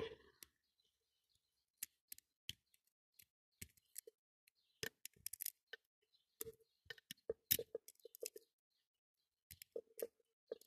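Faint, scattered metallic clicks and scrapes of a lock pick raking the pins in the keyway of a five-pin brass padlock, gathering in small clusters around the middle and again near the end. The lock is stubborn and is not yet opening.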